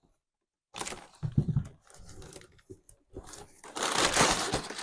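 Brown packing paper being crumpled and pulled out of a shipping box, crackling in short spells with a longer, louder crinkling stretch near the end.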